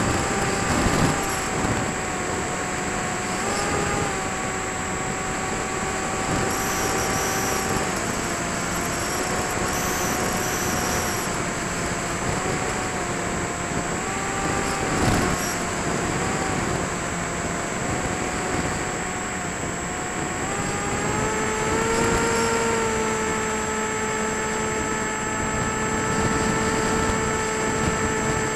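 Electric motor and propeller of a small foam RC plane in flight: a steady whine with a noisy rush behind it. The pitch wavers a little with throttle, then rises about three-quarters of the way through and holds higher.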